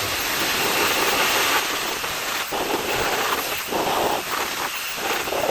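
Air blower blowing dust out of a vacuum cleaner's motor and fan: a loud, steady rush of air that briefly dips a few times as it is moved around.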